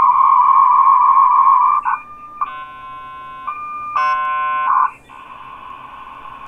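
Dial-up modems handshaking as the server's modem answers the call: a steady two-tone whistle for about two seconds, two short bursts of chord-like probing tones around three and four seconds in, then a band of hiss as the modems train toward a connection.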